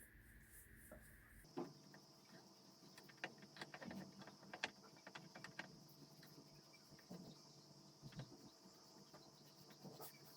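Near silence: faint room tone with a steady high-pitched tone and scattered light clicks, changing in character about a second and a half in.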